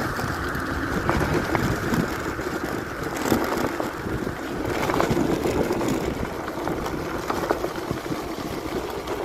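Electric scooter being ridden on an off-road dirt trail: a steady rush of wind and tyre noise with scattered small knocks and rattles.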